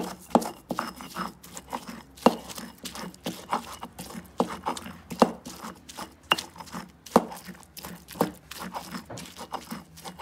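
Stone pestle pounding and grinding roasted green chiles, garlic and salt in a volcanic-stone molcajete: an uneven run of short knocks and wet crushing strokes, two or three a second.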